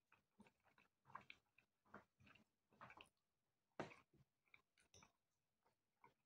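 Faint close-up chewing of pasta with fried sausage and fried egg: short, irregular wet mouth sounds and bites, with a sharper click just before four seconds in.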